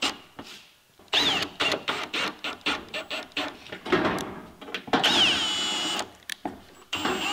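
Milwaukee Fuel cordless drill driving screws through a ribbed steel roofing sheet: a rapid rattling run of short bursts, then the motor whine drops and holds at a steady pitch for about a second, about five seconds in, and starts again near the end.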